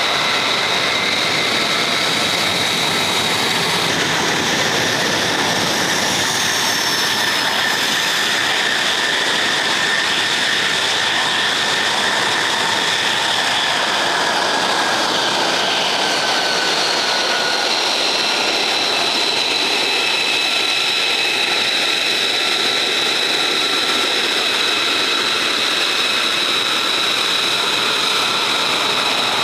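F-35A Lightning II's Pratt & Whitney F135 turbofan running at ground idle: a steady jet rush with a high whine that shifts slightly in pitch partway through.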